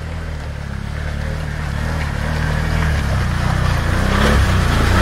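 ATV's V-twin engine pulling on a rocky trail climb, getting steadily louder through the second half.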